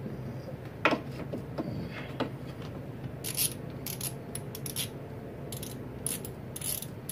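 A hand socket ratchet clicking in short, irregular runs as it turns the oil drain plug of a 2004 Honda Recon 250 ATV. A single knock comes about a second in.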